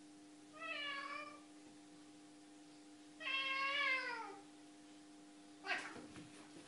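A domestic cat meowing twice: a short meow about half a second in, and a longer one around three seconds in that falls in pitch at its end. A sharp knock follows near the end, over a steady low hum.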